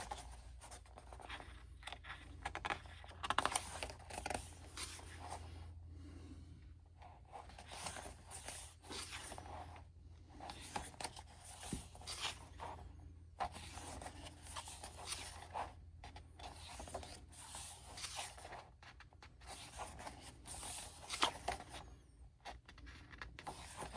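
Pages of a glossy album photo book being turned and handled: repeated short paper rustles and scrapes.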